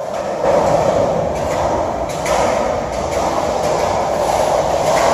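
Steady, echoing roar of an underground pedestrian tunnel, a rail-like rumble with no distinct events.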